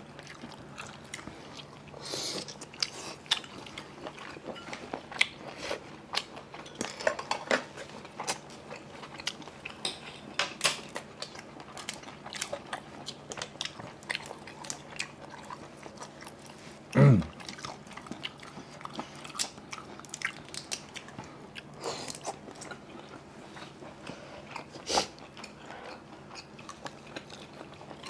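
Close-up eating sounds of people chewing and biting steamed seafood, with many small irregular clicks and smacks. About halfway through there is one short, louder low grunt or hum.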